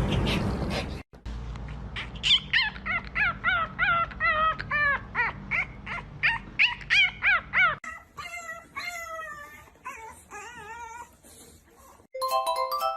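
A dog whining and yipping in quick, high cries that rise and fall, about four a second; about eight seconds in the cries turn quieter and wavering. A noisy rush cuts off about a second in, and glockenspiel-like music starts near the end.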